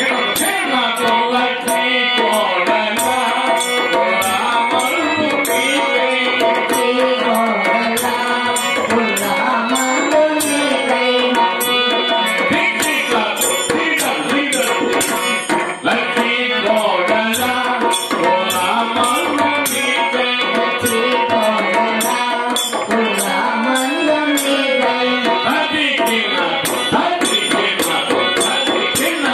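Telugu devotional bhajan performed live: singing over a harmonium's held reed chords and a two-headed barrel drum (dholak) keeping the beat, with a steady run of sharp high clicks from hand percussion.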